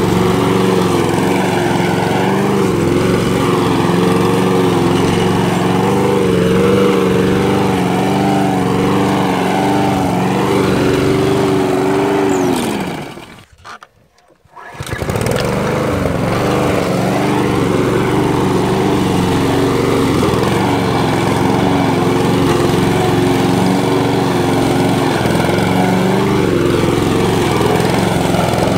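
Walk-behind gas lawn mower engine running steadily while cutting grass. About halfway through, its pitch sags and the sound dies away to near silence for about a second, then the mower is heard running steadily again.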